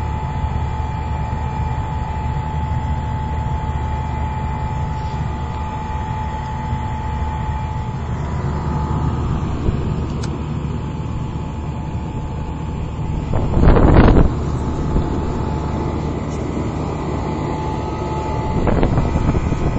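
1964 Trane 2-ton central air conditioner's outdoor unit running steadily in hot weather, compressor and condenser fan giving a steady hum with a thin constant tone over it. A brief loud burst of noise breaks in about fourteen seconds in.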